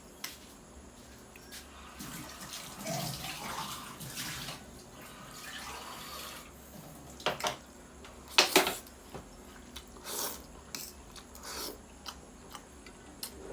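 Wet eating sounds of someone chewing and slurping noodles, with a few sharp mouth or utensil smacks, the loudest a little past halfway.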